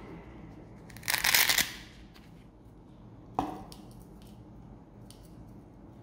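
Hook-and-loop fastener on the flap of a Victorinox nylon knife pouch ripped open, one rasping tear of about half a second. A couple of seconds later a single sharp click, then faint ticks as the knife is handled at the pouch mouth.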